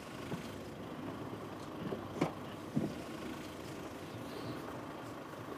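Steady hum of a car engine and street traffic, with two short knocks about two and three seconds in.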